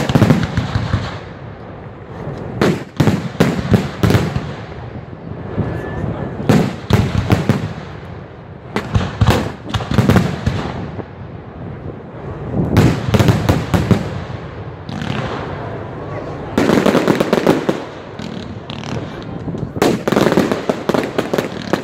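Aerial firework shells bursting in a display: runs of sharp bangs and pops, a fresh run every two to four seconds.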